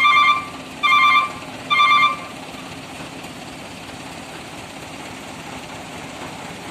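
A vehicle reversing alarm beeps three times, about a second apart, and then stops. Under it a diesel engine idles steadily.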